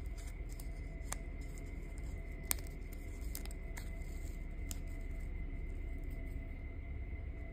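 Scattered light clicks and rustles of hands working black cord through a small cardboard jewelry card, the sharpest click about two and a half seconds in, over a steady low hum and a faint high whine.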